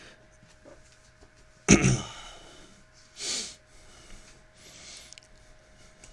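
A person sneezes once, loudly and suddenly, about two seconds in, followed a second and a half later by a quieter breath.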